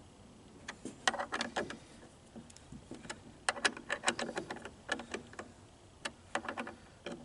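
Irregular clusters of small metallic clicks and rattles from a cordless chainsaw's bar and chain being handled while the chain tension is set. The chain is snug, slightly tight.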